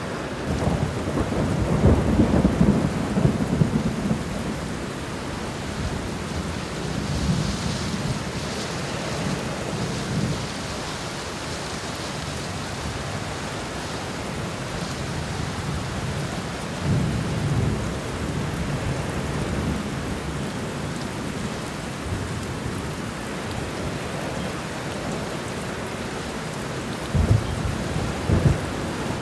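Thunderstorm: steady rain falling, with thunder rumbling low several times and a few sharper, louder claps near the end.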